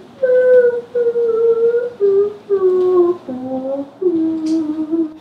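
A man humming a slow, mournful little tune of several long held notes that slide between steps.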